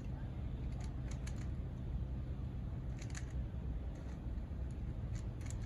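Rubik's cube being turned quickly by hand: clusters of light plastic clicks and clacks as the layers snap round, about a second in, around three seconds in and again near the end, over a steady low background hum.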